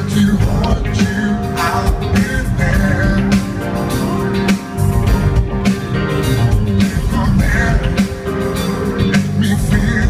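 Live band music with a steady drum beat, bass and guitar, and a male voice singing in places.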